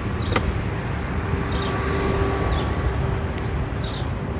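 Low steady rumble of an idling vehicle, with wind on the microphone. A single sharp knock comes about half a second in, and a faint steady tone runs through the middle.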